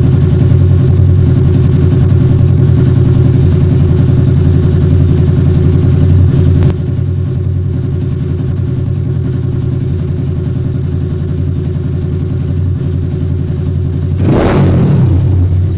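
An engine running steadily at an even idle, with a brief louder surge near the end.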